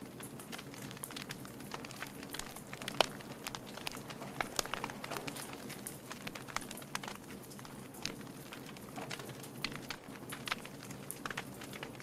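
Wood fire crackling: burning logs give off irregular sharp pops and snaps over a steady low background, with one louder pop about three seconds in.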